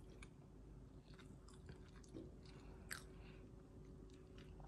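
Near silence: room tone with a faint steady hum and a few small scattered clicks, the clearest about three seconds in.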